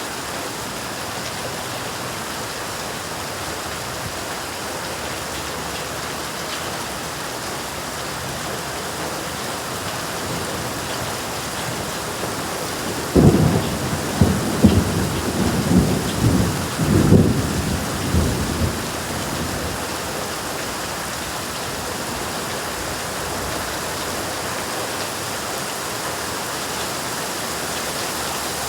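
Steady rain falling, with a roll of thunder about halfway through: a sudden low rumble that swells in several peaks over about six seconds, then fades back under the rain.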